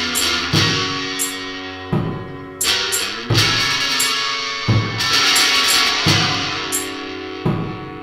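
Noise rock band playing an instrumental passage: slow, heavy drum hits with cymbal crashes about every second, under held, ringing chords.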